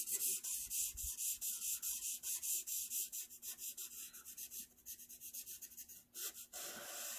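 Sharpie felt-tip marker scribbling rapidly back and forth on paper to fill in a letter, a fast run of scratchy strokes that thin out near the end.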